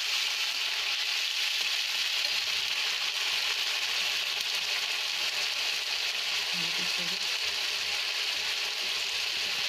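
Chopped onion, garlic and green chilli with ginger-garlic-onion paste sizzling steadily in hot oil in a kadhai, stirred with a slotted spatula.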